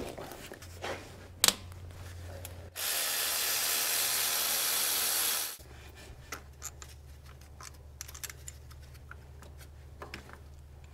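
A steady hiss that cuts in sharply about three seconds in and stops just as sharply about three seconds later, with scattered light metallic clicks and taps of hand tools before and after.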